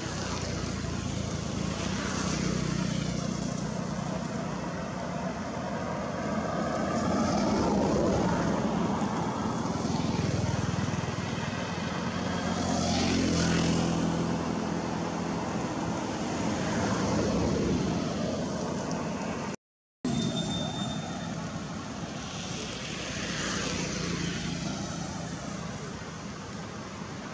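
Motor engine noise from passing vehicles, swelling and fading several times as each one goes by. The sound cuts out completely for a moment about twenty seconds in.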